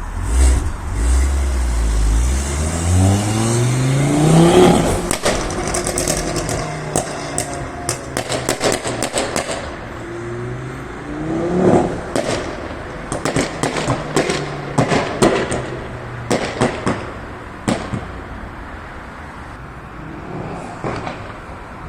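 Ford Focus mk2's 2.5-litre turbocharged five-cylinder engine revved hard twice, the pitch climbing steeply each time, and each rev followed on the overrun by a rapid string of loud exhaust pops and bangs: backfires that shoot flames from the exhaust.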